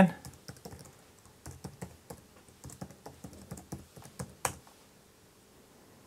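Typing on a computer keyboard: a quick, uneven run of key clicks, with one louder click about four and a half seconds in, after which the typing stops.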